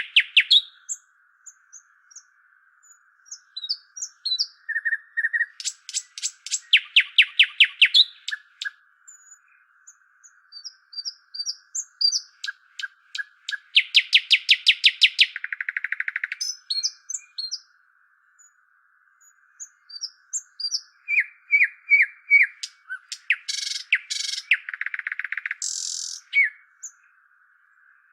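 Songbirds singing: bursts of rapid trills lasting a second or two, separated by short scattered chirps and brief pauses.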